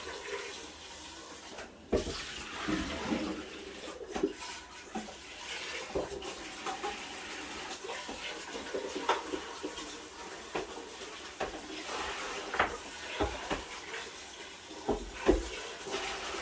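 Kitchen tap running into a sink while the air fryer's drawer is rinsed and washed out, with scattered knocks and clatters of it against the sink.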